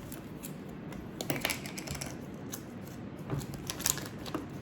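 Irregular clicking and tapping of fingers and nails on a small hard plastic putty container while trying to pry it open.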